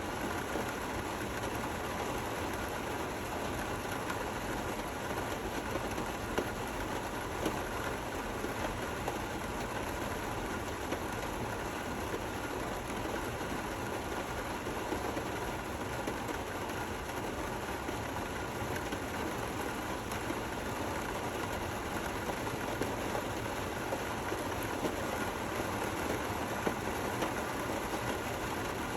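Steady rain falling, an even hiss with a few sharper drop ticks standing out here and there.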